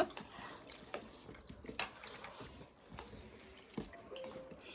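Faint, scattered clicks and taps of eating from a plate during a meal, a handful of them spread across a few seconds.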